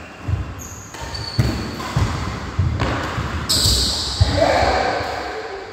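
Badminton doubles rally on a wooden court: players' feet thudding and shuffling on the floor, about one thud every half second, with racket strikes on the shuttlecock; loudest a little past halfway.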